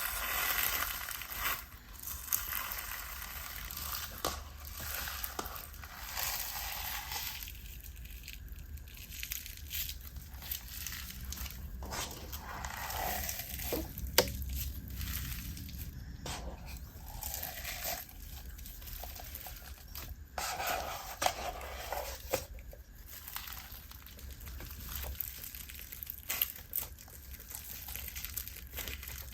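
Hands squishing and stretching a slime mixed with crunchy bingsu beads, crackling and crinkling, with scattered sharp clicks and one louder snap about halfway through.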